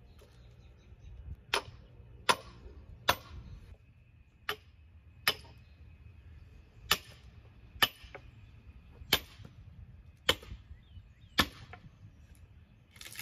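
Sledgehammer striking a steel wedge driven into a green white oak log, splitting it: about ten sharp blows roughly a second apart.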